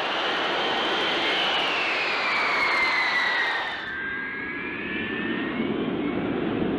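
Jet engine noise from a Boeing B-52's Pratt & Whitney TF-33 turbofans: a high whine over a rushing roar that slowly falls in pitch. About four seconds in the sound cuts to a deeper engine rumble with a whine that rises in pitch as the engines spool up.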